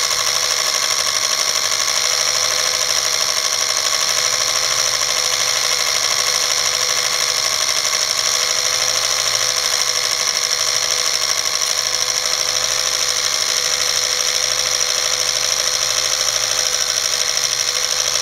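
Film projector running: the steady, rapid clatter of its film-advance mechanism together with its motor.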